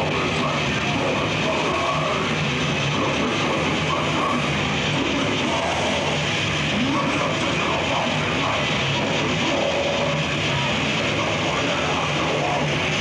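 Death metal band playing live: distorted electric guitars and drums in a dense, steady wall of sound with no breaks.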